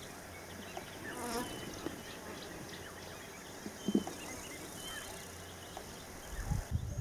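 Insects buzzing steadily in the bush, with a few short high chirps scattered through and a single soft thump about four seconds in.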